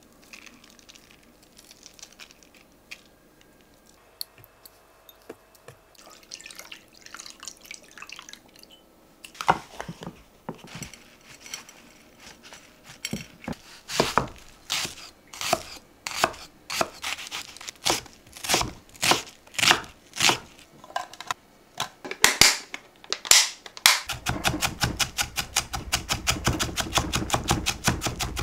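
Kitchen knife chopping on a cutting board: a few faint handling sounds at first, then slow, uneven cuts about one or two a second from about ten seconds in, turning near the end into fast, even chopping.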